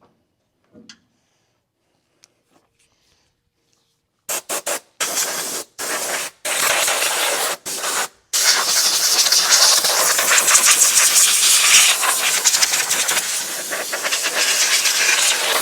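Pressurised spray hissing as a Stihl 064 chainsaw is blown or sprayed clean. After a few seconds of quiet with faint handling clicks, it comes in several short bursts, then runs as one long, loud, continuous hiss.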